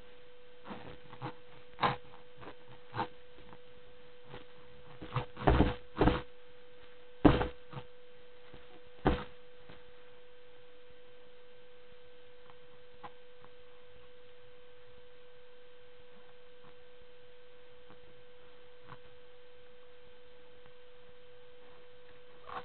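A steady electrical hum at one pitch, with fainter higher tones, runs throughout. Scattered short knocks and bumps come in the first nine seconds, the loudest clustered between about five and seven and a half seconds in. After that only the hum remains.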